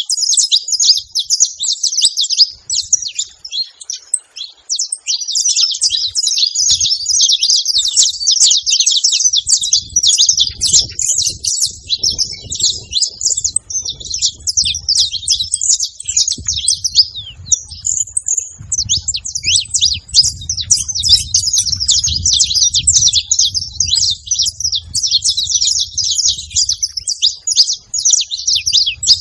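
Saffron finch singing: a rapid, nearly unbroken run of high chirps and trills. A soft low rumble runs underneath from about a third of the way in.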